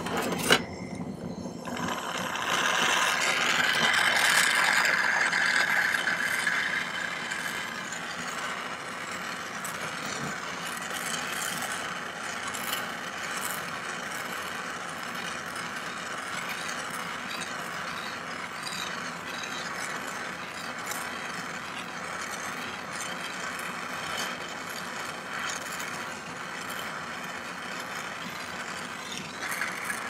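Jewelry soldering torch flame hissing steadily as it heats a sterling silver pendant to flow hard solder. A single sharp click comes about half a second in, and the flame is louder for a few seconds before settling to a steady hiss.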